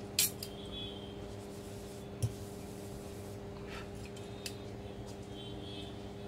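Light clicks and faint scraping of small parts being handled as a laptop's fan and heat sink assembly is worked on, with two sharper clicks, one at the start and one about two seconds in, over a steady low hum.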